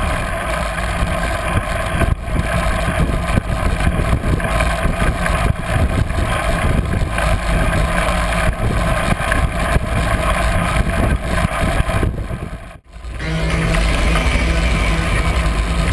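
Wind rushing over a handlebar-mounted camera's microphone, with tyre rumble, as a road bike descends a road at speed. The sound drops out briefly near the end, then comes back.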